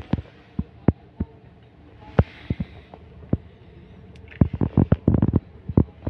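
A run of irregular short clicks and soft knocks, thickest about four to five and a half seconds in, with a brief hiss about two seconds in.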